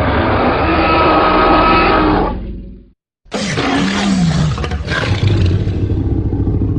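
Fan-made Tyrannosaurus rex roar sound effects, built from Jurassic Park T-Rex and Disney Dinosaur Carnotaurus roars: a long loud roar that cuts off sharply near the middle, then after a brief silence a second roar that starts abruptly with a low, falling growl.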